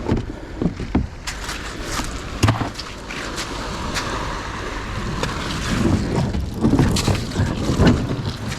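Kayak on the sea: water sloshing and splashing around the hull, with scattered knocks and a cluster of thumps in the second half. Wind is on the microphone.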